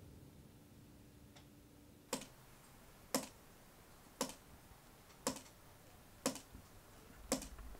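A clock ticking, one sharp tick about once a second, starting about two seconds in.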